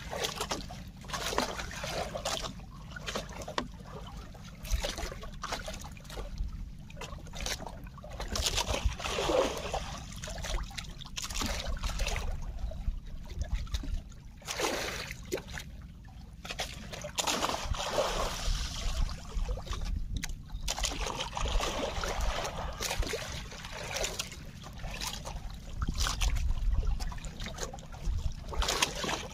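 Sea water sloshing and splashing against the hull of a small fishing boat in irregular surges, with a low rumble underneath.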